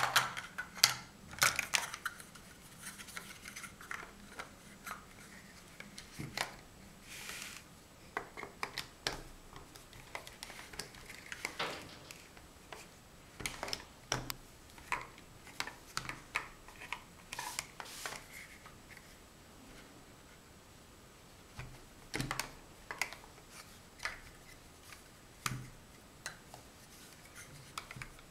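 Large hollow plastic Mega Bloks First Builders blocks clacking and knocking as they are snapped together and set down on a cloth-covered table, in irregular clicks with a few short scrapes, pausing briefly about two-thirds of the way through.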